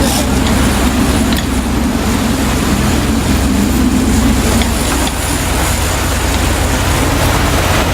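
Sport-fishing boat's engine running steadily under way while trolling, a low drone with a constant rush of wind and water over it.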